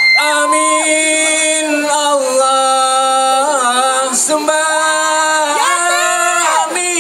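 Vocal chant of a Saman dance: voices singing a slow melody in long held notes, sliding in pitch between phrases, with no clapping.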